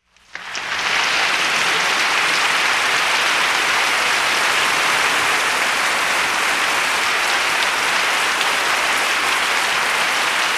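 Crowd applause: dense, steady clapping that swells in over the first second and then holds evenly.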